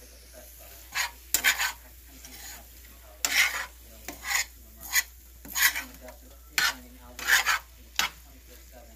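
A metal spoon stirring and scraping shrimp, imitation crab, peppers and onions around a frying pan, about a dozen short, uneven scraping strokes. Under them runs a faint steady sizzle of the mix sautéing in butter.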